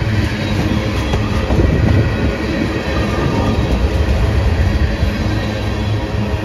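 Freight train of tank cars rolling past close by: a loud, steady rumble of steel wheels on the rails.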